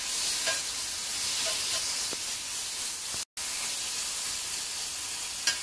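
Marinated chicken breast strips sizzling on a hot oiled griddle as they are laid down with tongs, a steady hiss with a few light tong clicks. The strong sizzle is the sign the griddle is hot enough for the chicken.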